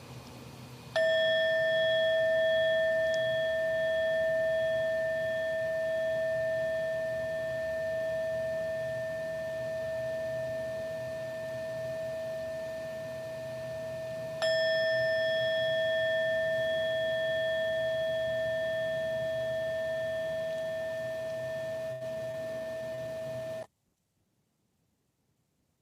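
A meditation bell struck twice, about thirteen seconds apart, each strike ringing on in a long, slowly fading tone, until the sound cuts off abruptly near the end.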